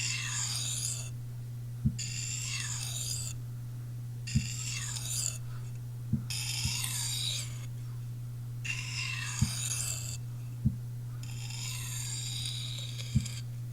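Steel knife blade (Magnacut) drawn across a sharpening stone in six separate strokes of about a second each, a hissing scrape with a slight squeal, forming a micro bevel to take out small chips in the edge. Short low knocks fall between the strokes as the knife is handled, over a steady low hum.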